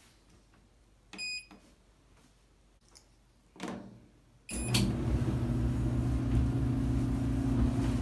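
Whirlpool Duet dryer control panel beeping as buttons are pressed, then, after the start beep a little past halfway, the dryer's motor and drum start up and run with a steady hum: the dryer starting and running normally after the faulty relay on its control board was replaced.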